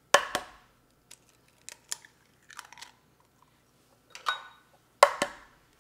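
Eggs being cracked open by hand over a glass bowl. There are two sharp shell cracks about five seconds apart, the second the loudest, with smaller crackles and taps of shell being pulled apart in between.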